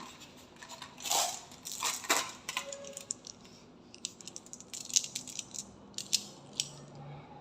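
Marbles clattering along a toy marble run: irregular clicks, clacks and short rattles, the loudest about a second and two seconds in.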